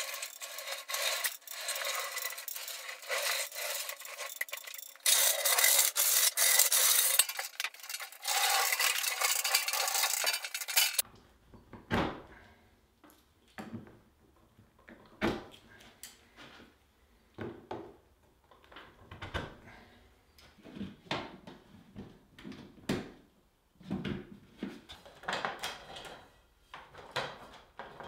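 A thin, even scraping noise with no low end, louder after about five seconds, cuts off suddenly about eleven seconds in. Then come scattered clicks and knocks of a plastic fluorescent ceiling light fixture and its cable being handled and fitted to wooden ceiling boards.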